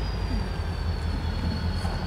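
EMD diesel freight locomotives, an SD40-2 leading Soo Line SD60s, working under power as the train approaches: a steady low engine rumble with a steady high whine over it that sags slightly in pitch.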